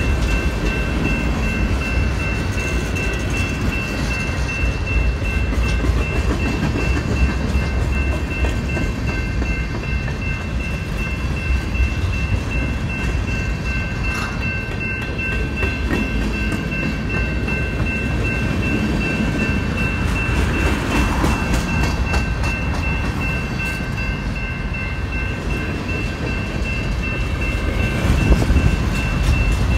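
Freight train of centerbeam flatcars and boxcars rolling steadily past, a continuous low rumble of steel wheels on rail, with steady high-pitched tones ringing over it. The rumble grows a little louder near the end.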